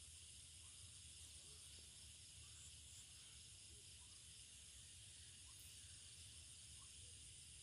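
Near silence: a faint, steady high hiss of outdoor ambience.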